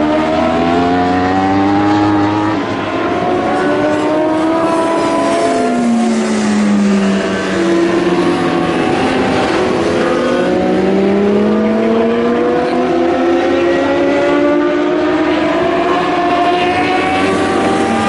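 Several endurance racing motorcycles run through a corner, their engines overlapping. The pitches fall and climb again and again as the bikes slow and then accelerate through the gears.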